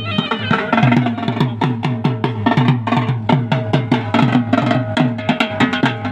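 Dhol drum played in a fast, steady rhythm of about four strokes a second, the deep bass strokes dropping in pitch, as music for a kushti bout.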